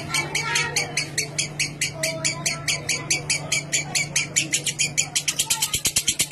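Lovebird 'ngekek': a long unbroken run of shrill, rapidly repeated chattering notes, about eight a second, quickening to about ten a second near the end. A steady low hum lies underneath.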